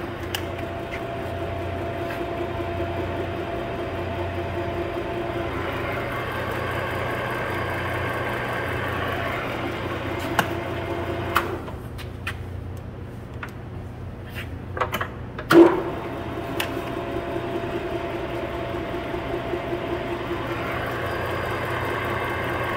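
Webb/Takisawa TSL-1000 D gear-head engine lathe running under power with the carriage on power feed: a steady hum with a whine. About 11 seconds in it goes quieter for a few seconds with some clicks, then a sharp clunk of a control lever, and it runs again.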